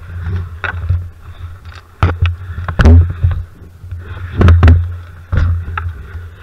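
A series of loud knocks and thumps, the loudest a little under three seconds in and again around four and a half seconds in, over a steady low rumble of handling noise on the microphone. This is a camera and its wearer's gear bumping against the planks of a wooden hut.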